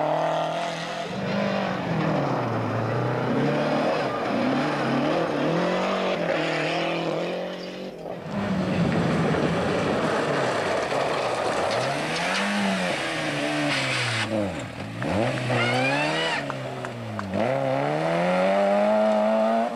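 Rally cars at full race pace on a gravel stage, one after another. Each engine revs high, then its pitch drops at gear changes and as the car passes, over a haze of tyre and gravel noise.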